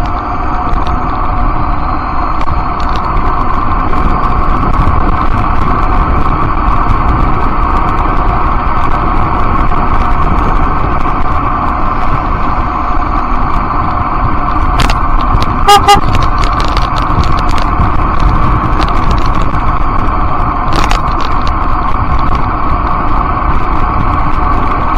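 Steady rush of wind and road rumble on a ride-mounted camera's microphone while riding along a street. About sixteen seconds in there is a short two-note beep, and a few sharp knocks come around then and again near twenty-one seconds.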